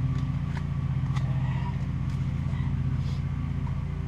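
A steady, low, engine-like mechanical drone runs throughout, with a few light clicks over it.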